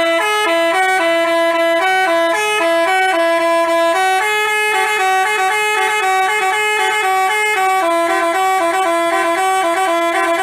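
Telolet basuri musical bus horn playing a tune: a continuous run of quick stepped notes, mostly hopping between two neighbouring pitches, without a break.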